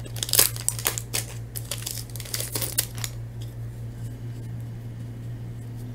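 Foil wrapper of a hockey card pack crinkling and tearing as the pack is ripped open and the cards slid out, a run of crackles over the first three seconds. After that only a few faint ticks over a steady low hum.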